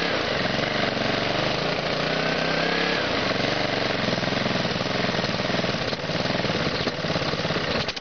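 Honda GCV160 single-cylinder four-stroke mower engine running with no blade fitted, its pitch wavering up and down; it cuts off suddenly just before the end.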